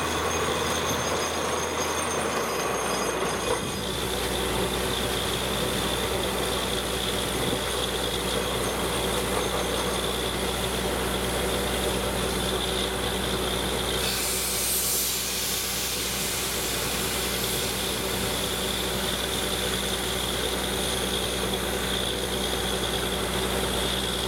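Truck-mounted borewell drilling rig at work: its engines and air compressor run with a steady drone while compressed air hisses out at the bore. The engine note shifts about three seconds in, and a sharper hiss rises for a couple of seconds about midway.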